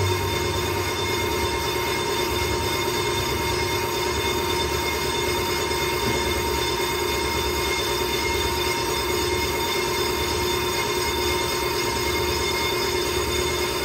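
Brake lathe turning a truck's brake rotor while its cutting bit skims the face, a steady metallic whine at several pitches over the motor's hum. The rotor is being resurfaced because it is warped, which made the truck vibrate under braking.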